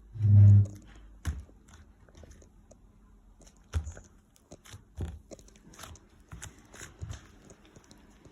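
Soft butter slime being pressed, poked and stretched by hand, giving scattered small squishy clicks and crackles. A brief low pitched hum sounds just after the start.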